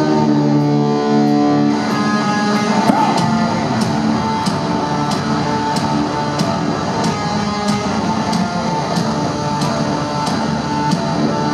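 Live rock band playing: distorted electric guitar and bass hold sustained notes, and from about two seconds in a steady high ticking about twice a second keeps time.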